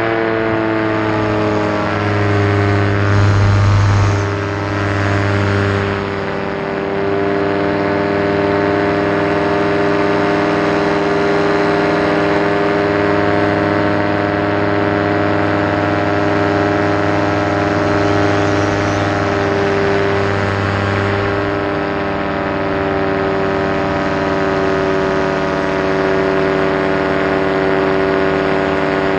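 Nirvana Instinct paramotor's engine and propeller running in flight. It falls in pitch over the first couple of seconds, then holds a steady drone.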